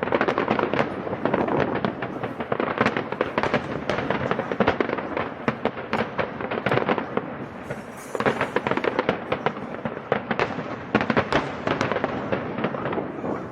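Fireworks display going off: a dense, continuous run of bangs and crackling, thinning briefly about eight seconds in.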